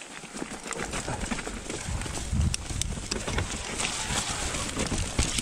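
Mountain bike riding over rough, stony trail: a steady rushing noise with many irregular knocks and rattles from the tyres and bike.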